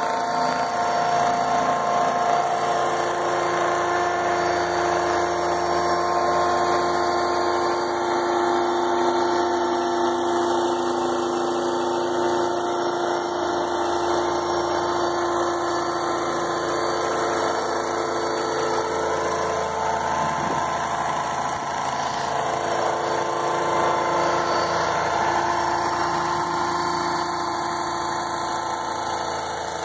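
Electric RC model Chinook helicopter, a 500-size scratch build with two three-blade rotor heads, hovering: a steady whine and hum from its electric motors and rotors, shifting slightly in pitch now and then.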